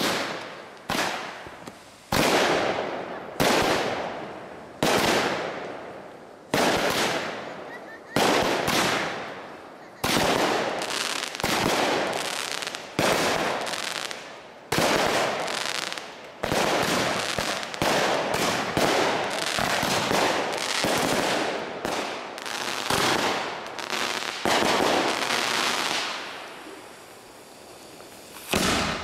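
Aerial fireworks shells bursting one after another, a sharp bang every second or so, each fading off in a long echo. The bangs stop a few seconds before the end, with one last bang near the end.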